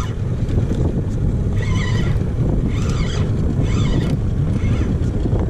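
Steady low rumble of the boat's outboard motor and wind on the microphone while trolling. Over it, a spinning reel is cranked as a hooked barracuda is reeled in, making a faint whirr that repeats about once a second.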